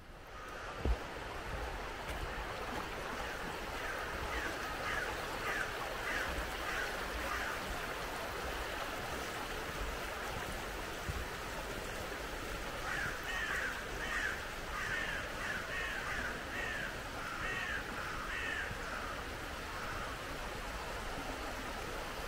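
Crows cawing in two bouts of short, repeated calls over the steady rush of flowing water, with a single sharp knock about a second in.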